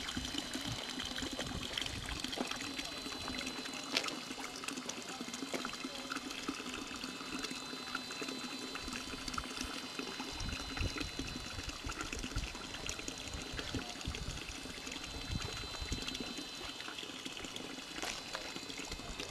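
Steady, fairly quiet outdoor hiss, with wind rumbling on the microphone in gusts from about halfway through.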